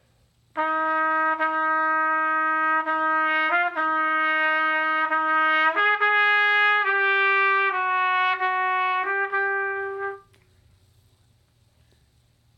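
Silver trumpet playing an unaccompanied slow melody: a run of tongued notes on one pitch, then a step up to a higher phrase about halfway through. The playing stops a couple of seconds before the end, leaving only faint room hum.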